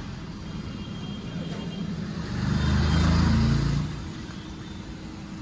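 Road traffic with a motor vehicle passing close by about halfway through: its engine rumble swells for a second or so and then fades.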